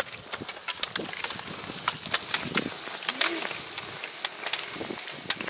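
Roller-ski pole tips clicking irregularly on wet asphalt as several skiers pole past, over a steady hiss from the wet road.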